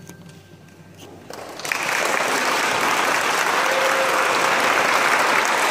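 Audience applauding: the clapping breaks out about a second and a half in and carries on loud and even.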